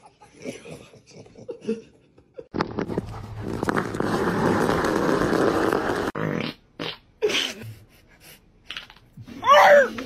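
A rock scraping and rattling along asphalt as a dog pushes it with its paws, for about three and a half seconds. Near the end comes a dog's short, loud, high yelp.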